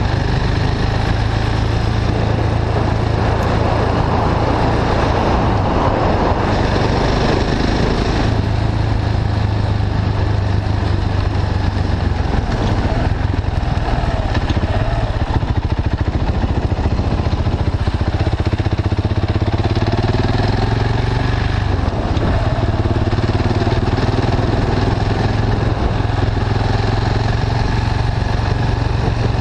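KTM 690 Duke's single-cylinder engine running on the move through an Akrapovic slip-on exhaust with the catalytic converter bypassed. In the second half the engine note rises and falls with the throttle.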